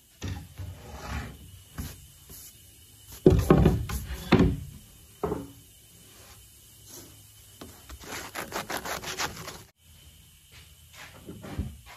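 A hand brushing and rubbing across a wooden tabletop, with a few louder wood-on-wood knocks and scrapes as a round wooden disc is pressed into a recess.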